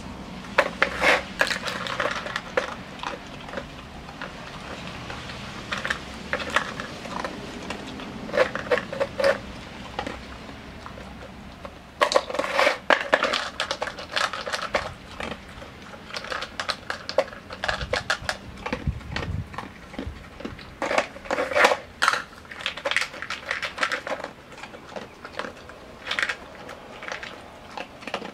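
Dog working a plastic treat-puzzle toy with its nose and eating the kibble from it: spells of plastic clattering and rattling of lids and cups, mixed with crunching of dry food.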